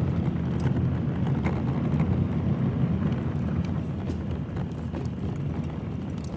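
Vehicle driving over a rough dirt forest road, heard from inside the cab: a steady low rumble of engine and tyres, with frequent knocks and rattles over the bumps.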